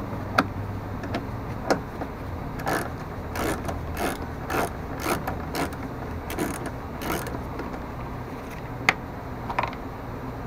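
Socket ratchet with an 8 mm socket clicking in short bursts as the dust-cover bolts are backed out, with a few single sharp metal clicks in between.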